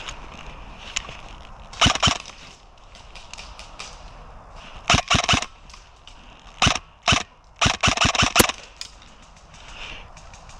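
Airsoft guns firing in short strings of sharp cracks: one string about two seconds in, another about five seconds in, then several quick strings from about six and a half to eight and a half seconds.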